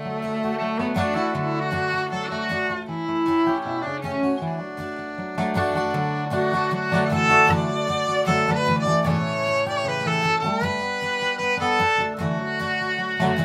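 Instrumental break: a fiddle plays the lead melody, with some sliding notes, over strummed acoustic guitar accompaniment.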